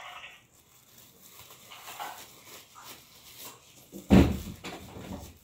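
Thin plastic disposable gloves rustling faintly as they are pulled on and smoothed over the hands, with one loud, sudden sound about four seconds in.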